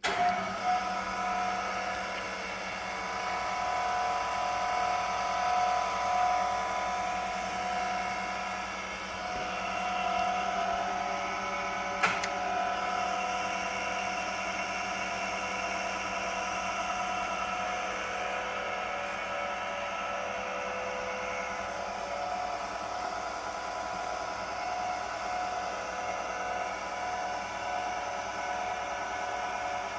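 Jungner US-400 tool and cutter grinder switched on and running steadily, its motor and spindle giving a steady whine with several tones. There is one sharp click about twelve seconds in.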